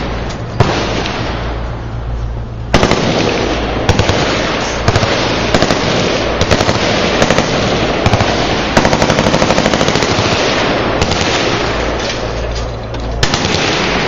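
Many machine guns firing at once on a crowded range: a dense, unbroken clatter of gunfire with louder close shots standing out, and a fast, evenly spaced automatic burst about nine seconds in.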